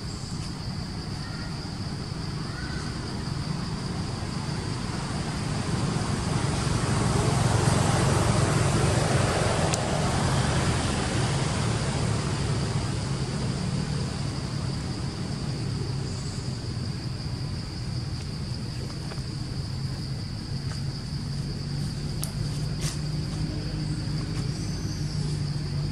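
A motor vehicle's low rumble swelling to its loudest about eight seconds in and then easing off, with a steady high insect drone beneath it.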